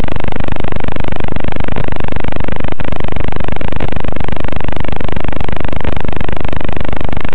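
Loud, steady static hiss with a fine constant crackle, from the empty audio channel of an analog FPV video receiver.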